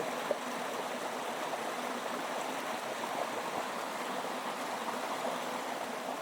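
Steady, even rush of water from a waterfall and fast-flowing mountain stream.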